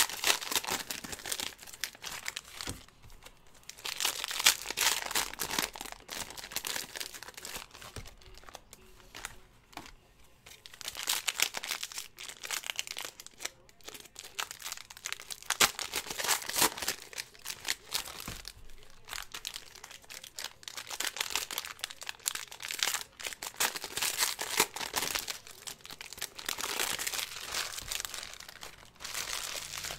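Retail hang packs of football trading cards being torn open by hand, their wrappers crinkling and tearing in repeated bouts a few seconds apart.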